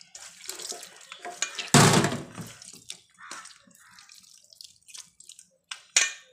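Orange segments being mashed and squeezed by hand in a metal plate: wet squelching and dripping juice with small clicks of fingers against the metal, a louder squish about two seconds in and a sharp knock near the end.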